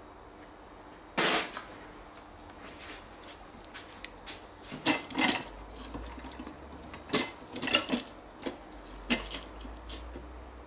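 Handling noises: a loud, short noisy burst about a second in, then scattered clicks and knocks, a few with a slight metallic ring, as a steel ring spanner and a paper template are handled on a wooden frame.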